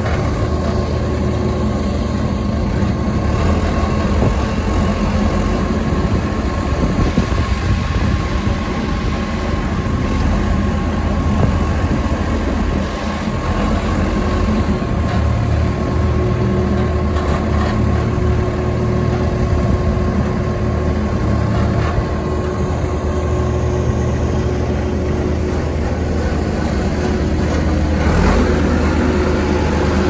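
2004 JCB 3CX backhoe loader's four-cylinder diesel engine running steadily while the machine moves about and lifts its front loader bucket.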